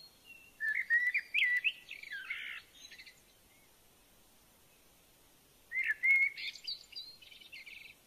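Warbling white-eye singing in two bursts of rapid, jumbled twittering, each about two seconds long. The first comes just after the start and the second about six seconds in.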